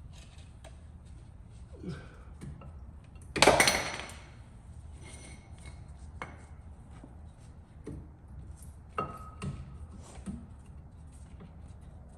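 Metal brake pads being pushed into the caliper bracket's hardware clips, giving scattered metallic clicks and clinks. A louder ringing clatter comes about three and a half seconds in.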